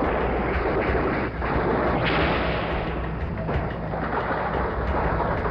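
Loud, sustained gunfire on old news-film sound, with fresh bursts about 1.3 and 2 seconds in.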